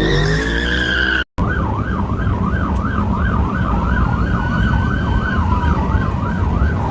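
A siren tone falling in pitch for about a second, a brief cut, then a police siren in fast yelp, rising and falling about three to four times a second. A steady low vehicle rumble runs underneath.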